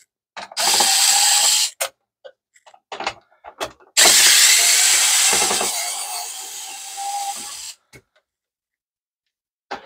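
A pen-style electric screwdriver running twice as it backs screws out of a plastic fax-machine case: a short run of about a second, a few light clicks of handling, then a longer run of nearly four seconds that grows quieter toward its end.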